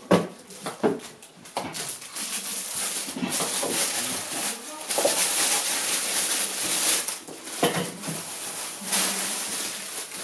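Clear plastic packaging bag crinkling and rustling as it is worked off a plastic pet-feeder bowl, with a few light knocks of hard plastic parts on the table.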